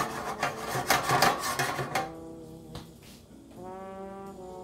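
Background music with long held notes that change pitch every second or so. For about the first two seconds a loud, rough rustling noise drowns it, then stops.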